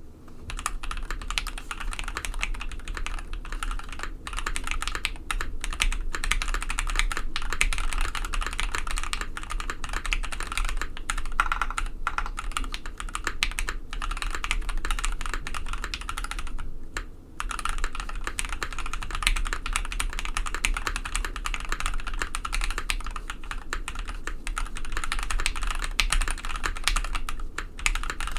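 Steady typing on a KBD67 Lite R2 mechanical keyboard with SP Star Meteor White linear switches on a polycarbonate plate and PBT keycaps, a dense run of key clacks. The typing stops briefly about 17 seconds in, then carries on.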